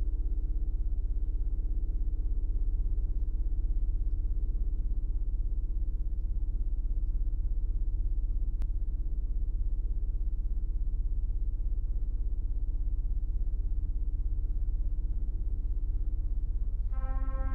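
Background music: a deep, steady sustained drone with a held mid tone. Near the end a brass-like horn chord comes in.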